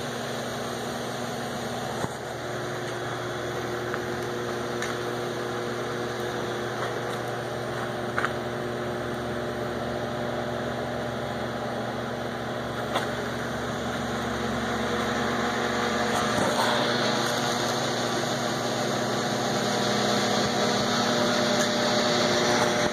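Oxy-fuel cutting torch hissing steadily as it bevel-cuts steel pipe, mixed with the steady hum of the pipe-beveling machine's drive motor, growing somewhat louder in the second half. A few brief sharp ticks.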